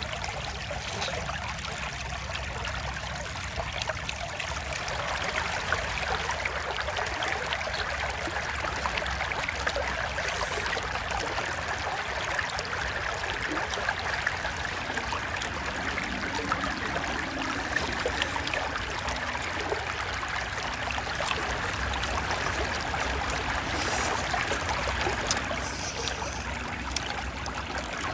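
Steady trickle of shallow flowing water, with faint fine crackles over it.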